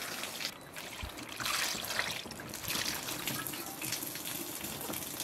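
Water poured from a clay jug trickling and splashing over lettuce leaves in a metal bowl, then running off in streams as the bowl is tipped to drain the rinsed leaves.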